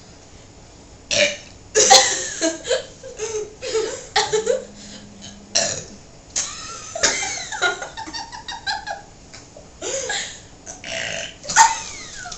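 Girls burping over and over after drinking: a string of burps of varying length, one held steady for more than a second about four seconds in.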